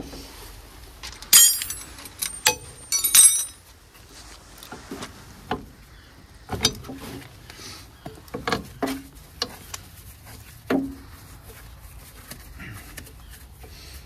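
Metal clinks and taps of a spanner on the wheel-cylinder and brake-line fittings of an Austin/Morris Minor van's front drum brake. A cluster of sharp, ringing clinks comes in the first few seconds, then scattered lighter knocks.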